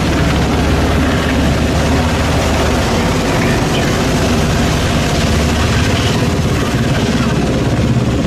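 Heavy engines running in a steady low rumble, under a constant rushing hiss of high-pressure water jets from water cannon.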